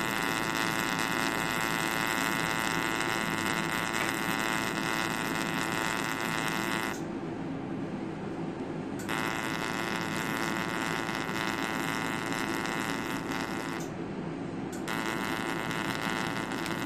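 Laser skin-treatment equipment running with a steady electric whine as the skin lesion is ablated. The higher part of the sound cuts out twice: for about two seconds some seven seconds in, and for about a second near fourteen seconds.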